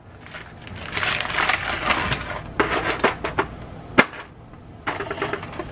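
Plastic Oreo cookie package crinkling and rustling, then cookies being set into a disposable aluminium foil pan with a few light taps and clicks, one sharp click about four seconds in.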